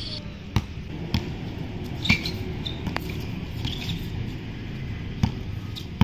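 Basketball dribbled on a hard outdoor court: about six bounces at uneven intervals, with a few faint short chirps between them.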